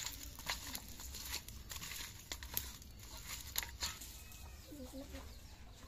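Raw fish pieces being turned and rubbed by hand on a steel plate: irregular soft clicks and wet handling sounds as the pieces knock against the plate.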